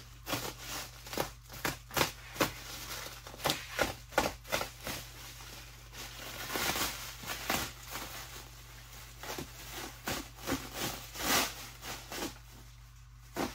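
Plastic stretch wrap being cut with a utility razor knife and ripped and pulled off by hand: a quick, irregular run of sharp crackles and rips, with longer crinkling tears about six to seven seconds in and again near eleven seconds.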